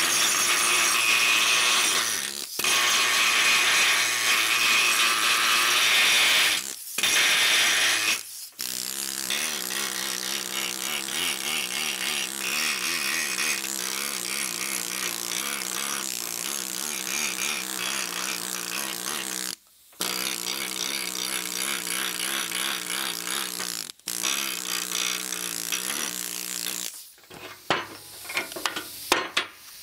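Pneumatic needle scaler hammering thick, brittle old paint and rust off the steel mounting plate of a post vise. It runs in several bursts separated by brief stops.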